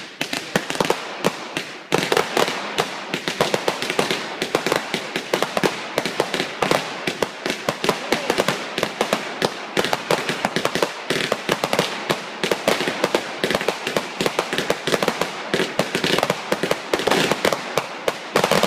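A barrage of fireworks going off in a dense, rapid string of bangs and crackles, with a brief lull about two seconds in.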